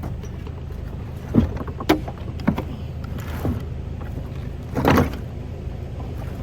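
A handful of knocks and thuds as heavy items are shifted and pushed around, over a steady low drone.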